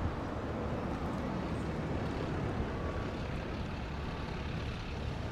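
Steady rumble of passing road traffic, with no distinct separate events.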